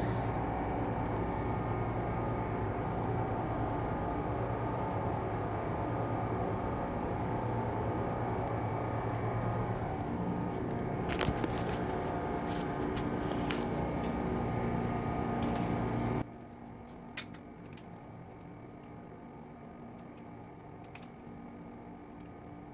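A steady mechanical hum with several fixed tones, with a few sharp clicks a little past the middle. About 16 s in the hum cuts off suddenly, leaving a much quieter background with scattered light clicks.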